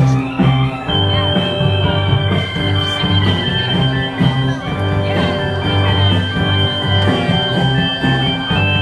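Blues band playing live, an instrumental passage over a steady bass line, with a high note held from about a second in.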